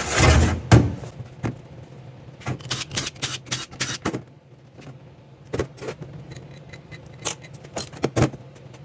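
Metal automatic-transmission parts being handled during a teardown: a loud short scraping rush in the first second, then many sharp clinks and knocks of steel parts set down and knocked together, in clusters.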